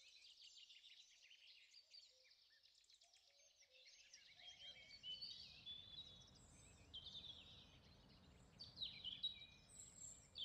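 Faint birdsong: several birds chirping and trilling at once. A low, steady background rumble comes in about four seconds in.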